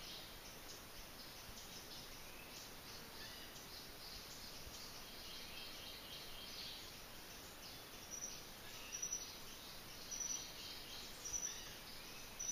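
Faint tropical forest ambience: a steady background hiss with scattered high chirps, and from about two-thirds of the way through, a short high call repeating roughly once a second.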